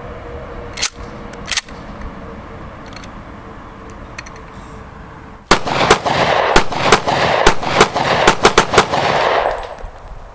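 Two single gunshots about a second apart, early on, then, from about five and a half seconds in, a semi-automatic pistol fired rapidly: about a dozen shots in some four seconds, each one ringing on into the next.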